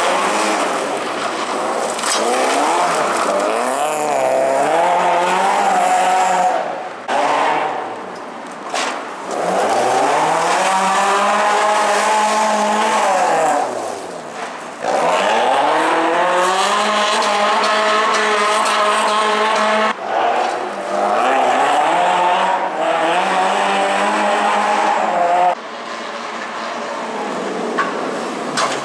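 BMW E36 318ti Compact rally car's 1.8-litre four-cylinder engine revving hard in several passes, its pitch climbing and dropping again and again with shifts and lifts. Its tyres scrabble and skid on loose sand and gravel. The passes are joined by abrupt breaks.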